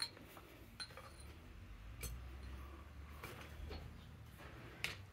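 A blacksmith's hammer tapping lightly on steel at the anvil: a handful of faint, irregular strikes about a second apart, the loudest near the start and near the end.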